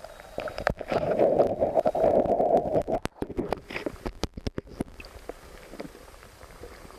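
River current heard underwater through a submerged camera, a muffled gurgling rush that is loudest in the first few seconds, followed by a run of sharp clicks and knocks around the middle.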